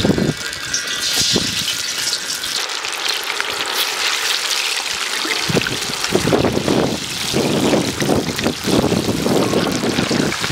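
Liquid pouring and splashing: a rushing, trickling sound that gets louder in uneven surges over the second half.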